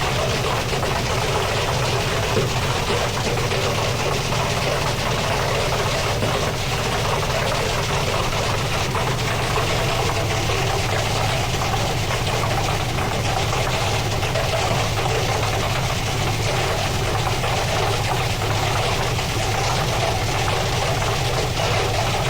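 Old Hotpoint washing machine running, its drum spinning with a steady, unchanging motor hum.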